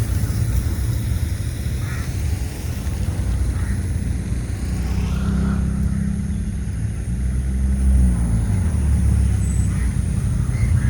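Low, steady engine rumble of passing motor traffic, swelling to its loudest in the middle.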